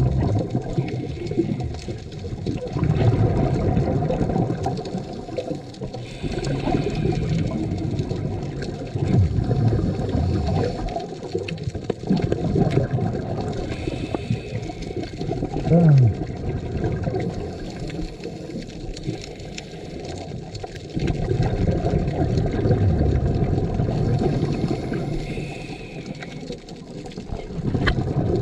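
Scuba diver breathing through a regulator underwater: repeated bubbling rushes of exhaled air, several breaths in a row, with a faint hiss between them on the inhale. A short low falling tone comes about halfway through.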